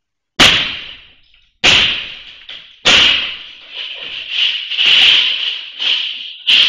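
A glass storefront door being struck hard from outside until it breaks: three sharp blows about a second apart, each leaving the glass and frame ringing, then a faster run of strikes and rattling as the glass gives way.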